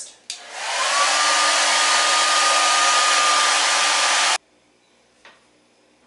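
Handheld hair dryer switched on with a click, its motor whine rising briefly and then running steadily with a loud airy hiss as it blows on stiff plastic tubing to soften it. The sound cuts off suddenly about four seconds in.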